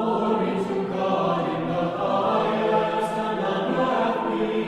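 A choir singing unaccompanied, several voices holding sustained chords as intro music.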